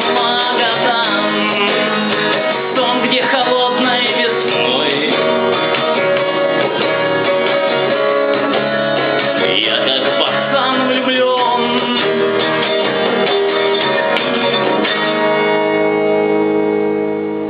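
Music led by strummed acoustic guitar, settling into sustained chords near the end.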